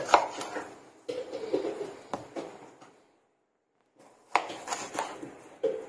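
Kitchen knife cutting tomatoes on a cutting board: sharp knocks of the blade on the board mixed with short scraping cuts, in two spells with a pause of about a second between.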